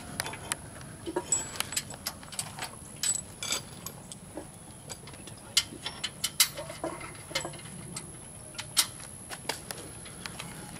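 Irregular light metallic clicks and clinks of hand tools and bolts being worked while a steel bumper is fitted to the Jeep's frame.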